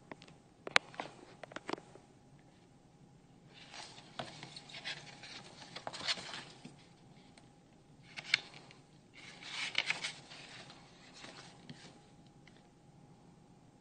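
Pages of a paperback picture book being opened and turned by hand: a few small clicks about a second in, then papery swishing and rustling twice, in the middle.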